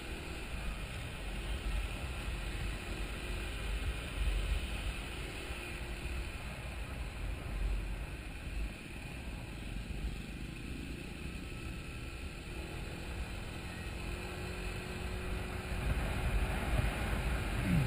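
Wind noise buffeting the microphone of a camera mounted on a moving sport motorcycle, with the motorcycle's engine running steadily underneath. Near the end the engine note drops briefly.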